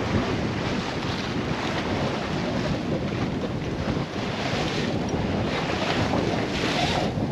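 Wind buffeting the microphone over the rush of water along the hull of a 1965 Alberg 30 sloop sailing in a building breeze, with waves washing past in a few swells of hiss.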